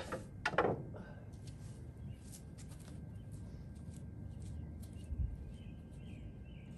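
Two clattering knocks as a recurve bow is lifted from among other bows on a slatted wooden rack. Then quiet outdoor background with scattered faint clicks and a dull thump about five seconds in.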